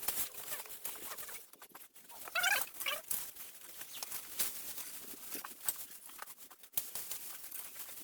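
Irregular scraping and rustling clicks, with a short wavering animal call about two and a half seconds in.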